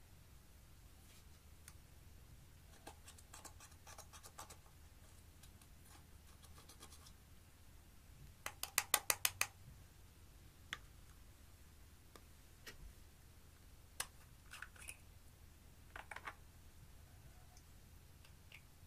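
Pressed eyeshadow being scraped and crumbled out of its palettes into glass dishes: faint scratching with scattered sharp clicks, and a quick run of about eight louder clicks about halfway through.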